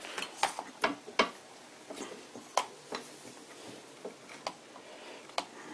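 About ten sharp, irregular clicks and knocks as a V-belt is worked by hand onto the motor pulley of an antique Karger metal lathe, the belt and fingers tapping against the pulley and metal parts.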